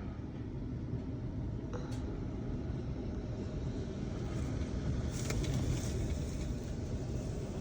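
Strong storm wind blowing in gusts, a low steady rumble that swells a little past the middle, with a couple of faint knocks.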